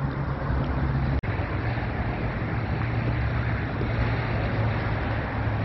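Wind blowing on the microphone over a steady low rumble, with a brief dropout about a second in.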